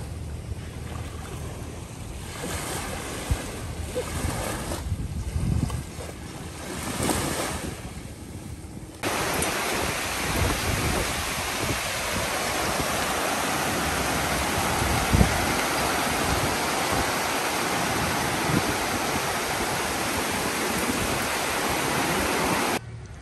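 Sea waves washing in, swelling every couple of seconds. About nine seconds in the sound cuts suddenly to a louder, steady rushing noise that stops abruptly just before the end.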